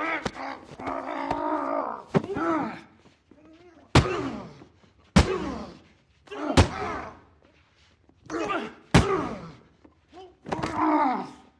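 Two men in a fistfight: a series of sharp punch impacts, a second or two apart, among strained grunts and pained groans.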